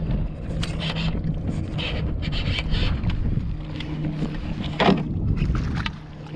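Wind rumbling on the microphone over a plastic fishing kayak, with knocks and scrapes of gear being handled on the hull.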